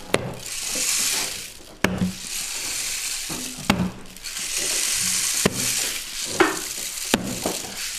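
A rainstick tube tilted back and forth, its filling rushing along the tube in long hissing pours, each ending in a sharp knock as it reaches the end, about four times.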